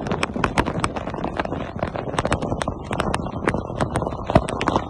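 Heavy rain with wind buffeting the microphone, and large drops striking close by as sharp, irregular taps, several a second.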